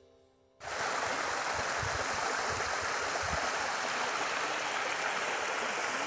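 Small waterfall spilling over rocks into a pool: a steady rushing splash of water that starts abruptly about half a second in.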